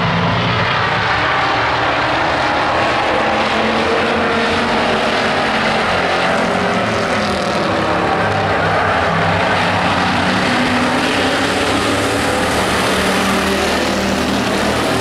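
Engines of a pack of stock pickup trucks running together around an oval track, a steady, continuous drone.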